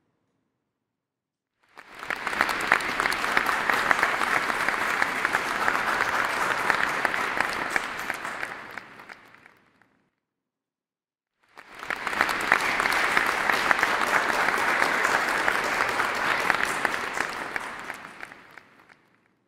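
Audience applause in two bouts of about eight seconds each, with silence before and between them; each bout fades in and fades out smoothly.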